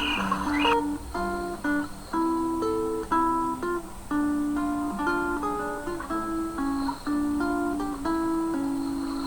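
Acoustic guitar playing a slow, relaxing melody of single plucked notes, one after another, each left to ring.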